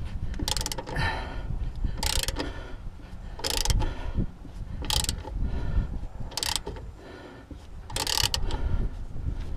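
Hand ratchet with a socket and extension turning a rear leaf-spring U-bolt nut. The pawl clicks in a short burst on each back-stroke, six strokes about a second and a half apart. The nuts are crazy tight even once broken loose.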